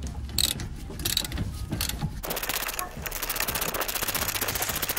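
Ratchet with an 8 mm Allen bit loosening a rear brake caliper bracket bolt: a few separate clicks, then, from about two seconds in, rapid continuous clicking of the ratchet's pawl as it is worked back and forth.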